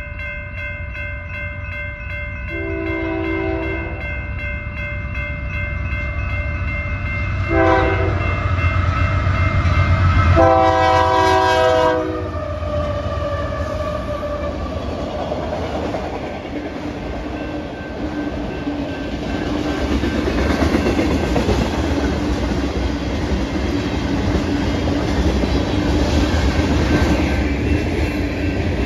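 Union Pacific diesel freight locomotive sounding its horn three times, the last blast the longest, then the locomotive and its freight cars rolling past with rumble and wheel clatter. Grade-crossing bells ring steadily underneath.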